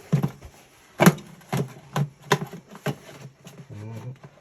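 A series of sharp, irregular knocks and clatters, about six of them, like hard objects being handled or set down, with a short low hum near the end.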